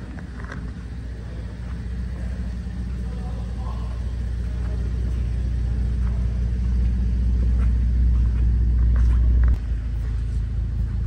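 Holden Commodore VE Series II SV6 ute's SIDI V6 engine idling steadily, a low even hum that grows louder, then drops in level suddenly about nine and a half seconds in.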